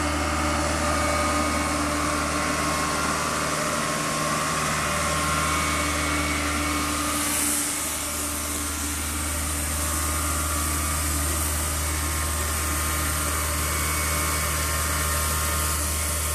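A 22.5-ton Dynapac nine-wheel pneumatic tire roller running steadily as it rolls past over freshly recycled asphalt: its diesel engine drones with a constant low hum, along with tyre noise.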